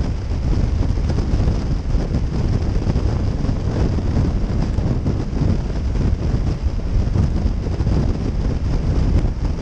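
Motorcycle cruising at highway speed, heard as steady wind buffeting on a helmet-mounted camera microphone over a low rumble.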